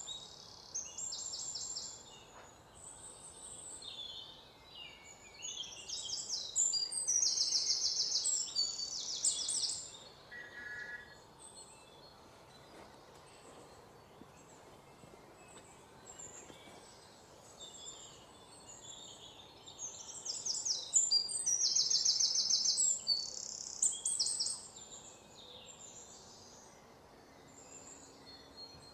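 Birds chirping in the background, in bursts of rapid repeated high notes, over a steady low hiss of room or outdoor noise.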